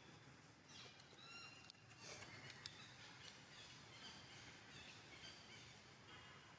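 Faint high-pitched animal calls and chirps, many short calls in quick succession, some gliding up or down in pitch, over a low steady background hiss.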